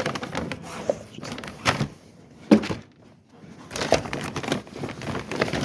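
Dry alfalfa cubes clattering and crunching as they are scooped and dropped into a batch of mash, a quick run of knocks with one sharp, loud knock about two and a half seconds in.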